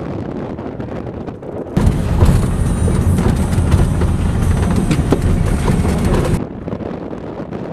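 Wind noise on the microphone of a moving vehicle. From about two seconds in until near the end, a louder deep rumble inside the vehicle's cabin on a rough dirt road, with scattered knocks and rattles, cuts in and then cuts off.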